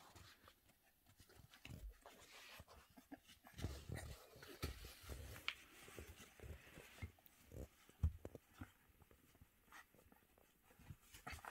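English Bulldog puppy chewing and rooting at its rope and plush toys on a puppy pad: faint rustling and soft, irregular knocks, mixed with the puppy's own breathing and mouth noises.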